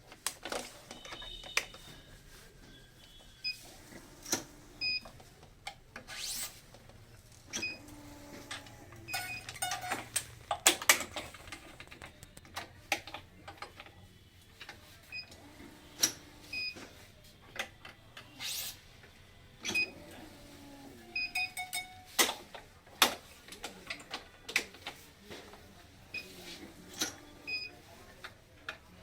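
Badminton racket stringing: irregular sharp clicks and taps, a few of them ringing with a short high ping, from the strings and the stringing gear.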